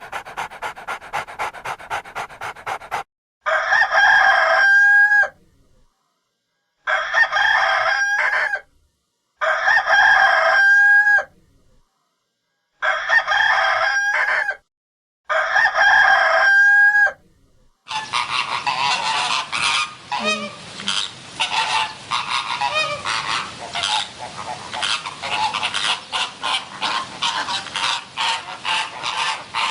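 Rapid panting breaths at first, then five loud honking bird-like calls, each about a second and a half long and ending in a short pitch glide, with silent gaps between them. From about 18 s in, a dense run of fast, rough pulsing calls takes over.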